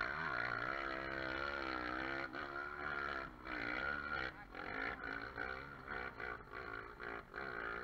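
Dirt-bike engine revving hard under load on a steep hill climb, its pitch swinging up and down in quick surges, with short drops in level from about two seconds in.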